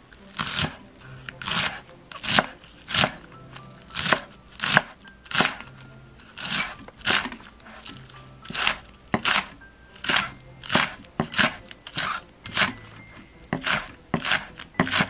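Chef's knife slicing scallions on a wooden cutting board: a steady run of sharp knife strokes, about two a second, coming a little quicker near the end.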